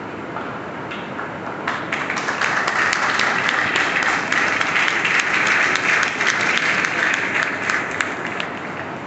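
Audience applauding. The clapping starts a couple of seconds in, swells, and dies away near the end.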